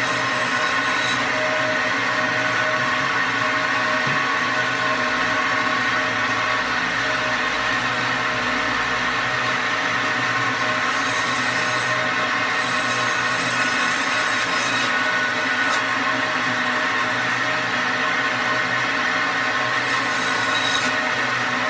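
Meat band saw running steadily with a hum of several level tones, its blade cutting through a large grouper. A harsher high hiss comes in at the start, again for several seconds around the middle, and once more near the end.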